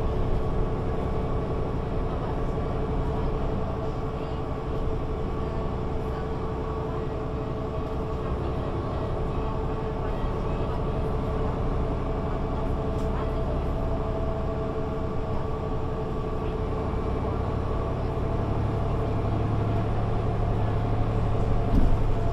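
Mercedes-Benz Citaro C2 G articulated bus heard from inside while driving steadily: a constant engine and drivetrain drone with steady whine tones over road rumble, with no revving or gear change. A low hum grows stronger near the end.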